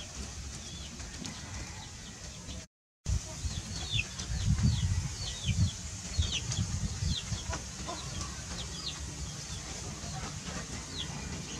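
Chickens peeping in a yard: a run of short high chirps, each falling in pitch, over a low rumbling background. The sound cuts out briefly about three seconds in.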